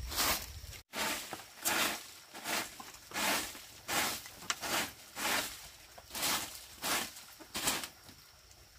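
Handmade straw broom sweeping a packed dirt floor: a run of brushing swishes, about one every two-thirds of a second, broken by a split-second dropout about a second in and stopping near the end.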